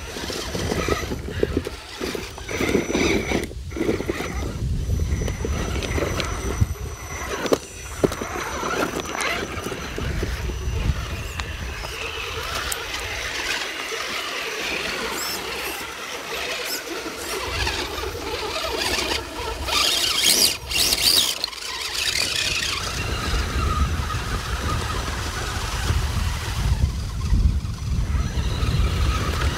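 Electric motors and geartrains of 1/10-scale RC crawler trucks whining as they climb over creek-bed rocks, with a few sharp knocks of tyres and rocks along the way.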